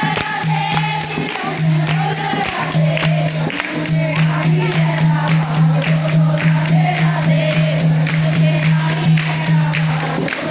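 Devotional bhajan: voices singing together over a dholak drum beat and jingling hand percussion, with a steady low hum underneath.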